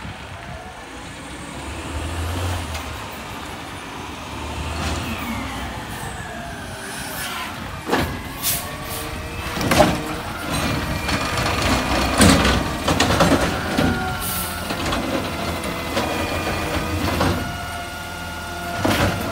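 McNeilus side-loader garbage truck pulling up and stopping: the diesel engine runs with a whine that slides down in pitch as the truck slows. From about eight seconds in come several short, sharp air-brake hisses and clunks as it halts beside the carts.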